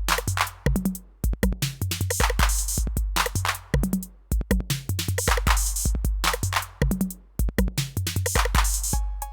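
Roland TR-8 drum machine playing an unprocessed factory pattern on its 808-style kit: long low bass drum hits under pitched low drum notes and rapid hi-hat and clap hits in a steady electronic rhythm. Near the end the pattern changes, and short pitched metallic tones join in.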